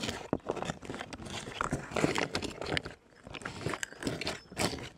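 Utensil stirring freeze-dried beef teriyaki inside its pouch just after boiling water was added: irregular wet squelching and scraping with soft rustles of the bag, easing off briefly about three seconds in.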